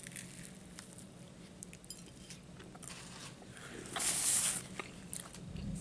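Chewing a bite of French dip sandwich, with small wet mouth clicks, then a paper napkin rubbing across the mouth for about half a second, about four seconds in.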